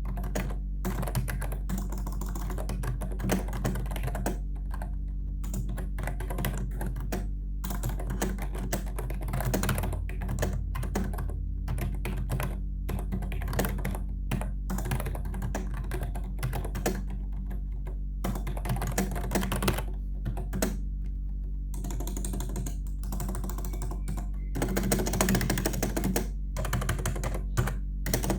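Typing on a Logitech K120 membrane keyboard: quick runs of key clicks broken by short pauses, over a steady low hum.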